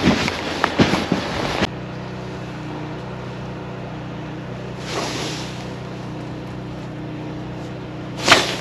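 Wind buffeting the microphone with a few crunching knocks, cutting off suddenly about a second and a half in. It gives way to a steady low engine-like hum. A brief rustle of a jacket sleeve comes near the end.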